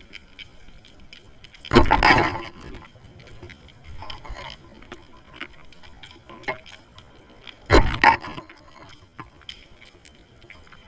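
Underwater sound picked up by a submerged camera: a steady faint crackle of scattered clicks, with two louder, noisy rushes about two seconds in and again near eight seconds.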